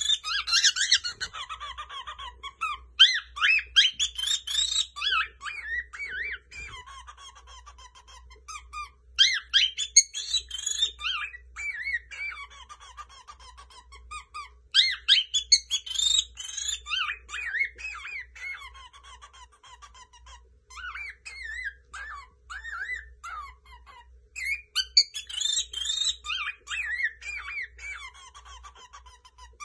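Cockatiel singing: phrases of quick warbling chirps and whistles, each lasting a few seconds, with short pauses between phrases.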